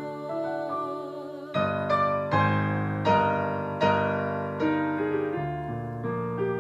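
Piano music: soft held notes, then from about a second and a half in, slow chords struck roughly every three-quarters of a second.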